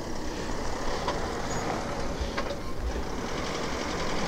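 Steady low rumble and hiss of outdoor background noise, with a few faint clicks.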